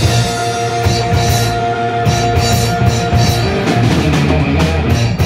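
Live punk rock band playing loud: electric guitars, bass guitar and drum kit with cymbal crashes. A single high note is held for about three seconds near the start.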